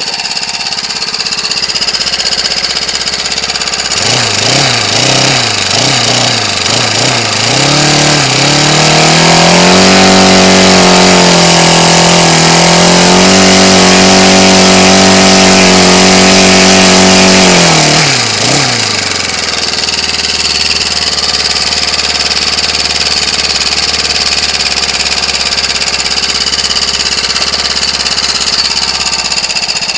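Ryobi 29cc four-stroke string-trimmer engine idling, then revved up and down by hand from about four seconds in, held at high revs for several seconds and dropped back to idle around eighteen seconds. It is running somewhat lean on its stock carburetor, which has no mixture adjustment.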